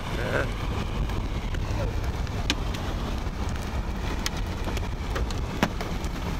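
Car driving: a steady low rumble of road and wind noise inside the cabin, with a few scattered sharp ticks.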